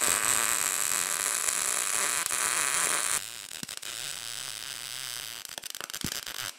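Electric arc welding on steel: a steady crackling hiss. It drops to a quieter, sputtering crackle about three seconds in.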